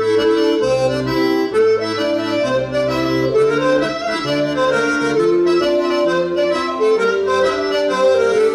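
Accordion playing a lively Breton dance tune, with a melody over a steady, repeating bass accompaniment.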